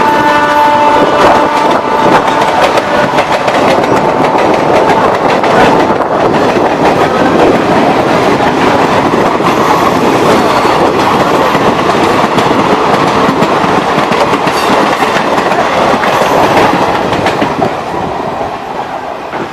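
Express passenger train running past at speed behind a WAP-4 electric locomotive, its coach wheels clattering over the rail joints in a dense, steady rush. The locomotive's horn dies away about a second in, and the noise falls off near the end as the train goes by.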